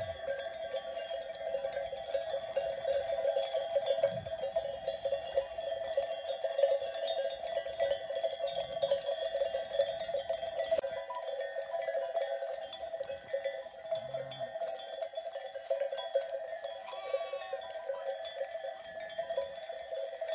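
Many sheep bells of a flock jingling and clanging together without a break, a dense, steady ringing.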